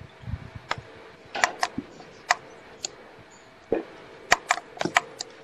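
About a dozen sharp clicks and knocks at irregular intervals, loudest near the middle and about a second from the end.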